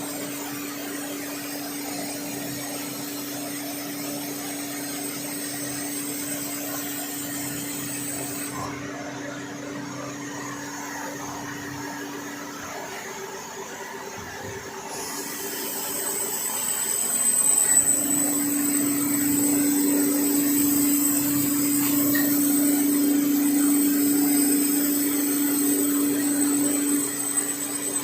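CNC lathe running while turning a tractor's first gear: a steady machine hum and cutting noise. The hum drops out a little past the middle and comes back louder for the last ten seconds or so.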